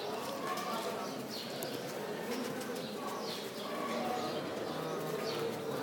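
Steady outdoor ambience of distant voices murmuring, with birds calling in short chirps every second or so.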